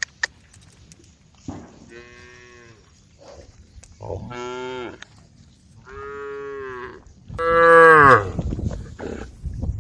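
Cows mooing: four drawn-out moos, one after another, the last one the loudest.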